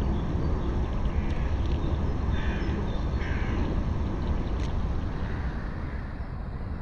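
Two short harsh bird calls, a little under a second apart, over a steady low rumble.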